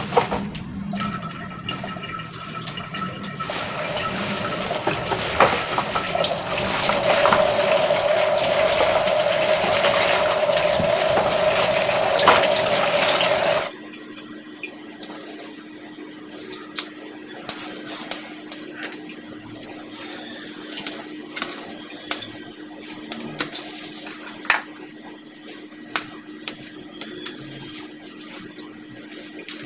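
Water running and splashing into a plastic basin as young cassava leaves are washed by hand, growing louder with a steady filling tone in its second half, then cutting off suddenly about 14 seconds in. After that, quieter scattered light clicks and rustles of hands picking cassava leaves apart over a plastic cutting board, over a faint steady hum.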